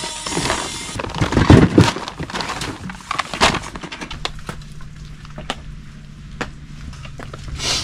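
Handling noise of a heavy portable power station and battery being set down on a plastic groundsheet: a few thumps and knocks with crinkling of the sheet. Later come scattered light clicks over a faint, steady low hum.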